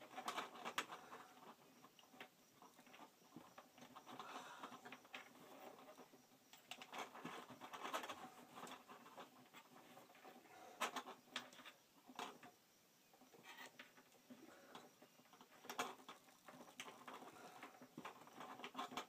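Faint rustling and scraping of electrical cables being pushed and tugged through a hole in a wall, with scattered sharp clicks and ticks as the wire catches and knocks.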